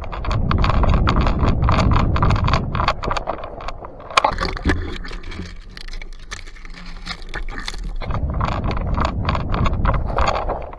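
Hurried footsteps over sand and through dry brush, with twigs rustling and gear rattling. A heavy rumble comes and goes as the movement jolts the body-worn camera.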